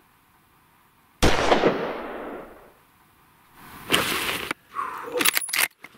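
A hunting rifle fitted with a sound moderator fires one shot about a second in, the report fading away over about a second. A second loud burst follows about two and a half seconds later, then a few sharp clicks near the end.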